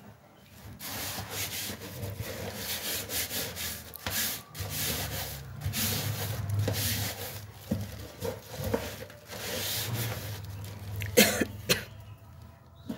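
A plastic-gloved hand scrubbing the skin of a whole giant gourami in a stainless steel sink, in repeated rubbing strokes. Two short, sharp, louder sounds come near the end.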